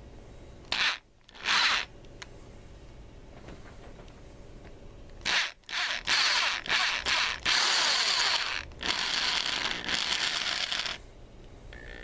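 Handheld electric drill switched on and off in short trigger pulls. Two quick bursts come about a second in, then a string of short bursts starts about five seconds in and lengthens into longer runs, stopping a second before the end.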